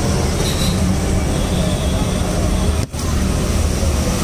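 Loud, steady din of street traffic, with a brief dropout about three seconds in.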